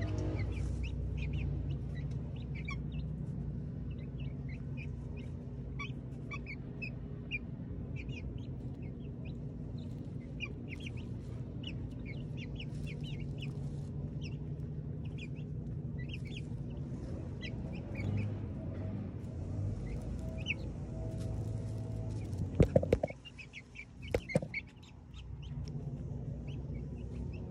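Young chickens chirping and clucking as they peck and feed, with a steady low hum underneath. A few loud, sharp knocks come near the end.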